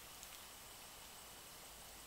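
Near silence: faint background hiss with a couple of faint ticks near the start.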